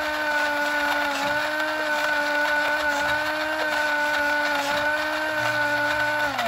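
Radio Shack 4x4 Off Roader RC truck's electric drive motor running with a steady whine, winding down in pitch at the very end.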